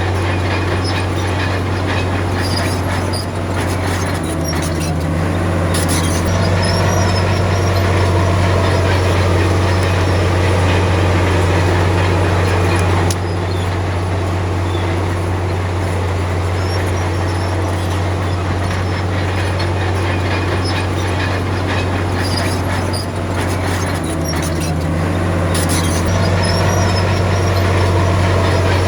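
Komatsu D53P bulldozer's heavy diesel engine running steadily under load, its note shifting twice as the load changes, with occasional short metallic clanks.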